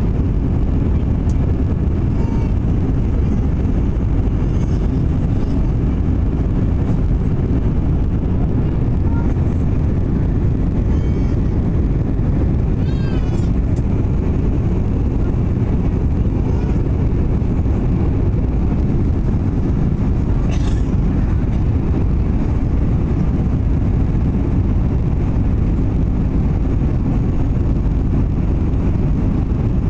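Steady low cabin noise of an Airbus A321 airliner on final approach, engine and airflow noise heard from a window seat, holding an even level throughout.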